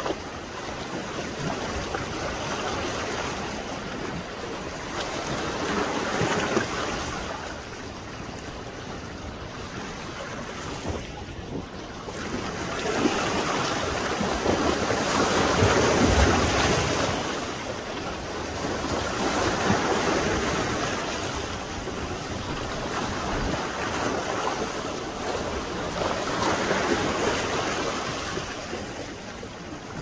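Heavy sea surf: large waves breaking and washing up a pebbly beach. The hiss of the surf rises and falls every few seconds and is loudest about halfway through.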